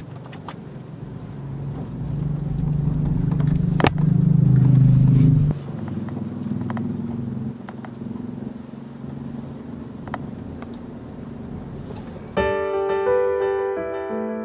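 Car engine and road noise heard from inside the cabin as the car moves off and drives, louder for about three seconds near the start, with one sharp click about four seconds in. About twelve seconds in this cuts off and piano music starts.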